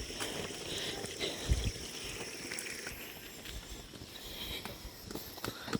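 Footsteps on a hiking trail: scattered steps and scuffs, with a heavier step about a second and a half in, over a steady faint high-pitched background hum.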